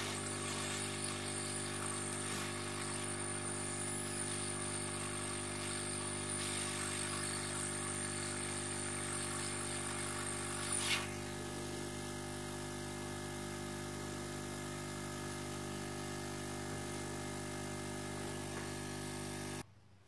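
Hot air rework gun blowing to reflow solder on a mobile phone circuit board: a steady fan hum with air hiss and a high whine. About eleven seconds in, the hiss and whine stop, leaving the steady hum, which cuts off just before the end.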